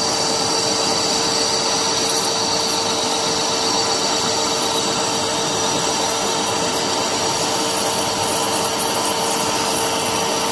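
Harrison 140 metal lathe running while a parting tool cuts a groove into a spinning metal workpiece: a steady cutting noise with a constant tone over it.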